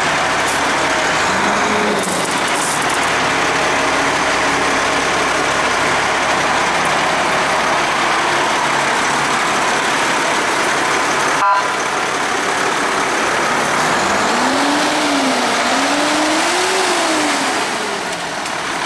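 Fire engine's diesel engine running, a steady loud drone; near the end its pitch rises and falls twice as it is revved.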